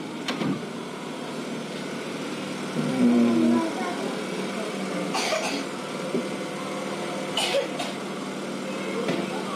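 A steady machine hum, with faint voices and a short pitched sound about three seconds in.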